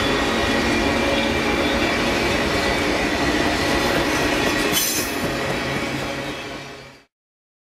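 Passenger train cars rolling past at speed, with a steady rumble of wheels on rail and a faint, steady wheel squeal. A brief high hiss comes about five seconds in, then the sound dies away as the last car passes and fades to silence near the end.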